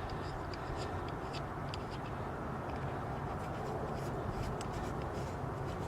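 Faint light ticks and scrapes of small metal parts being handled, over a steady low hum: a hand rivet gun's nosepiece being swapped for a larger size.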